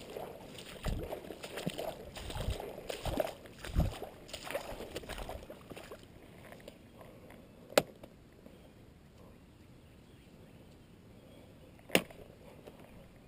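Footsteps wading and sloshing through shallow water and mud, a splashy step every half second or so, fading out about five seconds in. Then a quieter stretch with two sharp clicks about four seconds apart.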